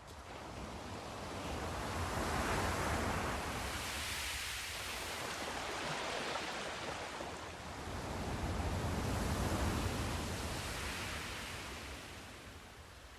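Sea surf: waves breaking and washing in on the shore, a wide hiss that swells and ebbs. Two swells come in, about six seconds apart, and the wash fades near the end.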